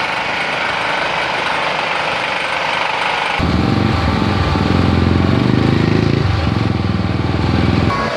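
Street noise, then about three and a half seconds in an abrupt switch to a louder, low, evenly pulsing engine running, which cuts off near the end.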